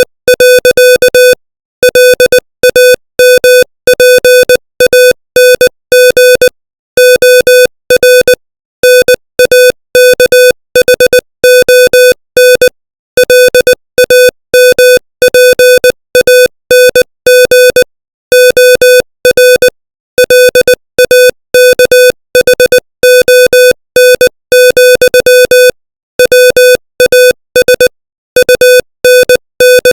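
Morse code sent at 20 words per minute: a single-pitched electronic beep keyed on and off in short dits and longer dahs, with short gaps between letters and longer ones between words.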